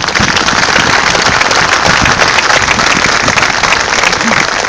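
A crowd applauding: many people clapping together, loud and steady throughout.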